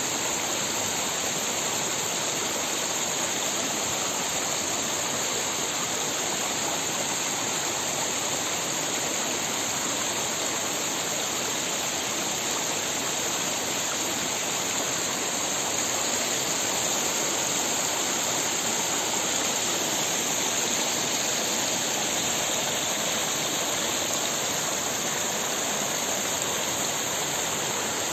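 Small mountain stream running over rocks, a steady rush of water.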